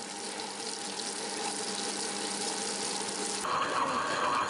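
Tabletop wet grinder running, its stone rollers churning soaked urad dal into batter: a steady motor hum under a wet swishing, sloshing noise. About three and a half seconds in the sound changes abruptly to a louder churning as the batter turns smooth.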